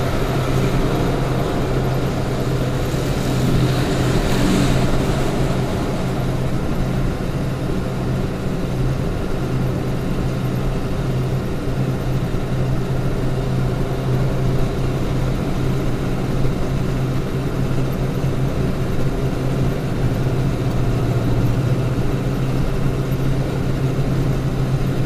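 Steady road noise from a vehicle cruising at motorway speed: tyre and wind rush over a constant low engine drone, as heard from the cabin. The hiss swells briefly about four seconds in.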